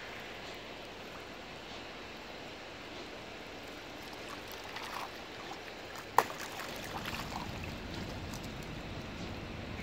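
Wels catfish splashing at the surface in shallow water at a pebble shore, over a steady wash of water. There are a few small splashes about five and seven seconds in, and one sharp plop about six seconds in, the loudest sound.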